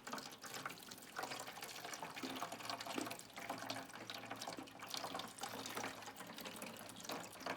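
Water running and splashing irregularly into a container, like water filling a tank from a tap.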